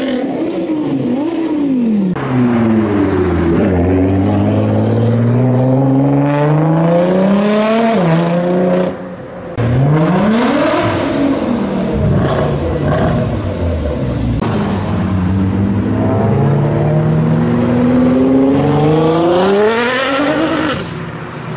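Nissan GT-R engine revving again and again, its pitch climbing and falling. The pitch drops sharply about eight seconds in, the sound lulls briefly, and then the engine revs up again, ending on a steep rise near the end.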